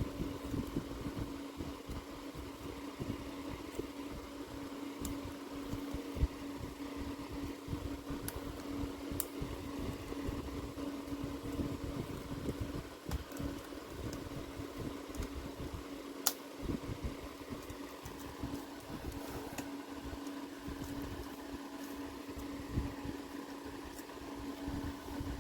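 A steady mechanical hum over a low rumble, with a few sharp small clicks now and then, the clearest about sixteen seconds in.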